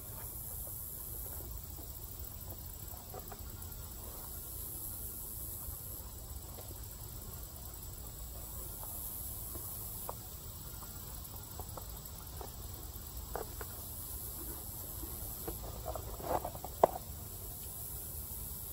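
Takeout container and sandwich being handled on a lap tray: scattered light clicks and rustles that grow busier near the end, with one sharp snap about seventeen seconds in. Under it runs a steady low background rumble and a high hiss that swells and fades every few seconds.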